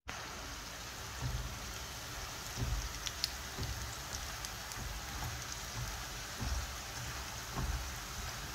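Potato fries deep-frying in hot oil: a steady sizzling hiss with scattered sharp pops and crackles, and a few soft low bumps, about five of them.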